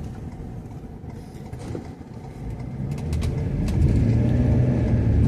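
Vehicle engine and road rumble heard from inside the moving vehicle, growing louder about halfway through as it speeds up.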